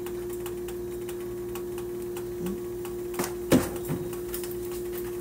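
Kitchen containers being handled on a counter: scattered light clicks and taps, with a louder knock about three and a half seconds in, as of a jar or glass set down, over a steady low hum.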